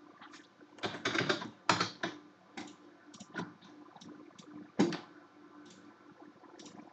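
Computer keyboard typing and mouse clicking while entering values and picking points in CAD software: a quick run of key presses about one to two seconds in, then scattered single clicks.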